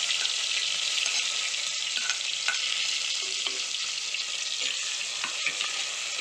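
Chopped onions sizzling steadily in hot oil and popped mustard seeds in a clay pot, the start of sautéing them, with a few light clicks and scrapes of a ladle stirring.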